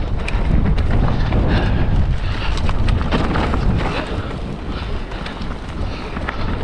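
Wind buffeting the camera microphone of a mountain bike at speed on a dirt trail, a loud steady rumble. Over it the tyres and bike frame rattle, with many sharp clicks and knocks.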